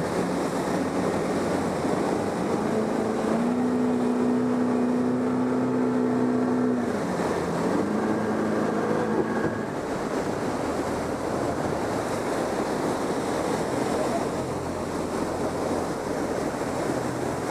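Steady rushing water of the Moconá falls on the Uruguay River. A few seconds in, an engine hum holds a steady pitch, dips briefly and comes back before fading out.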